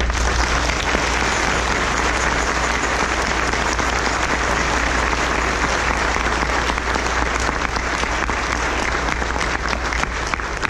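A congregation applauding: the applause breaks out suddenly and thins near the end into separate claps, over a steady low hum.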